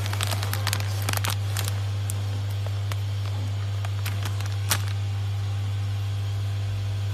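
A steady low hum under scattered crinkles and clicks of plastic-film packaging bags being handled, with one sharper click about two-thirds of the way through.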